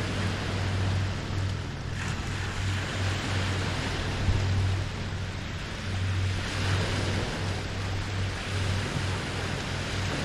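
Small Lake Huron waves lapping and washing on the shore in a steady hiss, swelling briefly about two seconds in and again past the middle. A low rumble comes and goes underneath.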